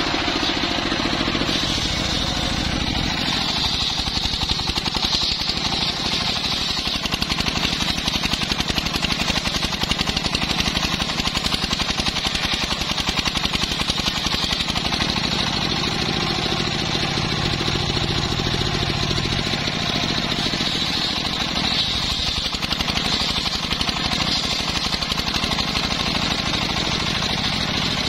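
Engine-driven homemade circular saw bench running steadily as its large blade rips a teak log lengthwise: the engine's rapid, even firing under a continuous high hiss of the blade cutting through the wood.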